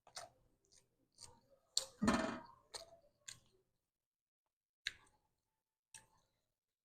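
Someone eating close to the microphone: scattered wet clicks from the mouth and utensils, with chewing. About two seconds in there is a short, louder, pitched sound from the eater, such as a hum or a slurp.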